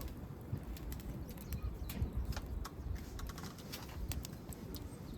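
Wood fire crackling: irregular sharp snaps and pops of burning wood over a low rumble.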